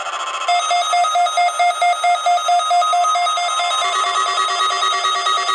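NOAA weather radio receiver alarms beeping rapidly and evenly, set off by the weekly test, with a steady warning-alarm tone near 1 kHz underneath. A further lower alarm tone joins about four seconds in.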